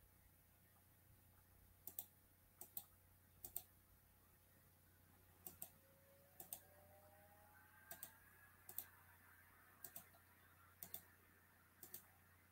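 Faint computer mouse clicking: about ten clicks, each a quick double tick, roughly one a second, over a low steady hum.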